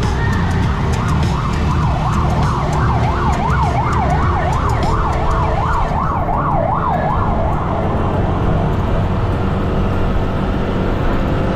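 An emergency-vehicle siren sounds in rapid up-and-down sweeps, about two a second. It grows stronger over the first few seconds, then fades away after about seven seconds, over the steady low rumble of wind and engine noise from a moving scooter.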